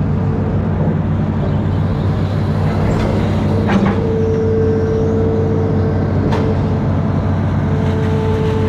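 Amphibious excavator's diesel engine running steadily under work, with a higher whine that comes and goes and two short knocks, about four and six seconds in.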